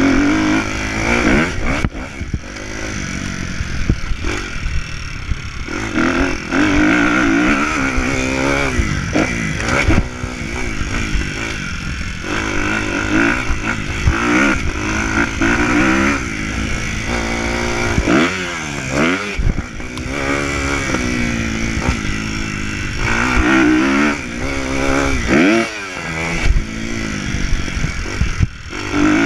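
Kawasaki motocross bike's engine revving up and falling away again and again through gear changes, with a couple of brief throttle-offs, heard close up with wind rush on the microphone.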